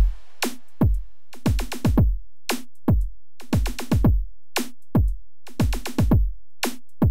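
Electronic music stripped down to a drum-machine beat: a deep kick drum that drops in pitch about twice a second, with a lighter hit about every two seconds and silence between the hits.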